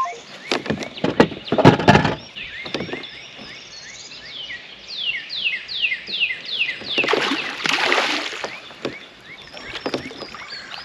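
Knocks and bumps of handled gear against a plastic kayak hull, then a rushing, sloshing noise about seven seconds in. A bird sings a quick run of downward-slurred notes in the middle.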